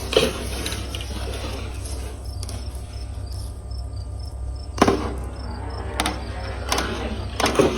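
Marbles rolling down an outdoor marble run's slide track, with a rolling rattle at first, then a quieter stretch, then sharp clicks of marbles striking the track about five seconds in and several more near the end. Faint high chirps, like an insect, repeat through the quiet stretch.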